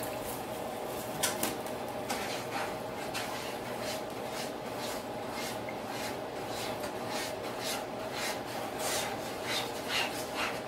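Powdered sugar being shaken through a mesh sieve: a run of short, soft rasping strokes, irregular and a few per second, starting about a second in.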